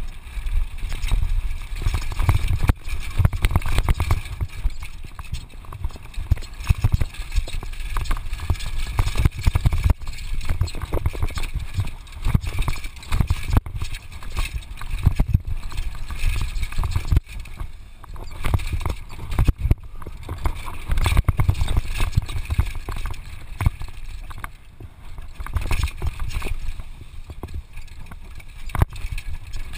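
Downhill mountain bike ridden fast down a dirt trail: wind buffeting the helmet camera's microphone, with tyres crunching on the dirt and the bike rattling and knocking irregularly over bumps and jumps.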